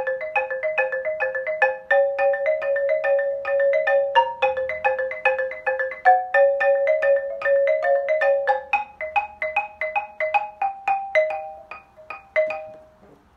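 Xylophone played with two mallets: a ragtime exercise in A flat in quick, even strokes, a low note repeated under a moving upper line. The playing stops just before the end.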